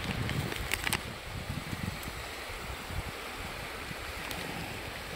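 Wind buffeting the microphone, gusting hardest in the first second, over the steady wash of surf. A few short clicks come just before a second in.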